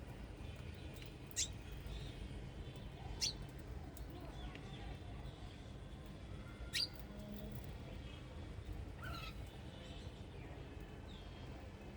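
Wild birds chirping: brief, sharp calls, four louder ones a few seconds apart with fainter ones between, over a steady low background rumble.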